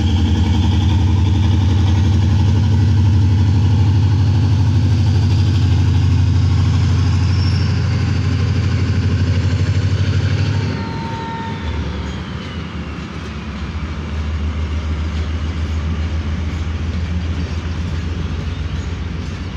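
ZCU-30 diesel-electric locomotive running under power as it pulls away, a deep steady engine throb. About eleven seconds in the level drops sharply, leaving a quieter, steady running sound of the train with a faint high tone sliding down.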